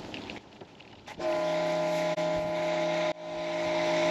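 Kärcher K5 electric pressure washer starting up about a second in, its motor running with a steady hum over the hiss of the water jet; it dips for an instant about three seconds in, then runs on, growing louder.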